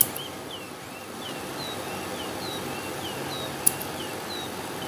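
Scissors snipping the tails off nylon cable ties: a sharp snip right at the start and a louder one about two-thirds of the way through. A bird chirps over and over behind it, short rising and falling chirps a couple of times a second.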